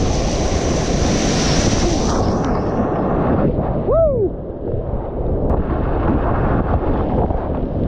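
High-water whitewater rapids rushing and crashing around a kayak, heard close up at water level, with spray splashing over the camera for the first two seconds. About four seconds in, a brief rising-and-falling cry sounds over the water.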